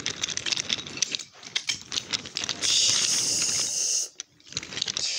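Toy train cars rolling on wooden track, clattering and clicking over the joints, with a steady hiss for over a second partway through.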